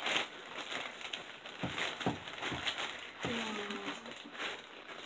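Quiet room sound with faint rustling and a few soft knocks from handling things, about four in a row over a second and a half. A brief low murmur follows a little after three seconds in.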